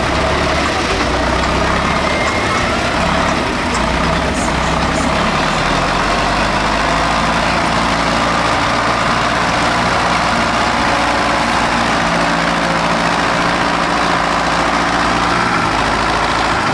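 Tractor engine running steadily at an even pace.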